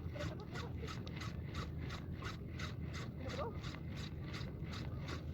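Fishing reel being cranked: a rhythmic scraping whir at about four to five strokes a second, over a low steady rumble.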